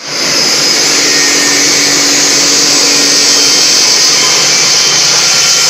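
Motor-driven stainless-steel colloid mill (nut butter grinder) running, a loud, steady whir with a strong high hiss.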